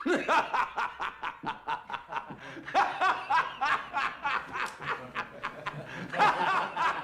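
A man breaking into hearty laughter, starting suddenly after silence and going on in quick, repeated pulses of laughing.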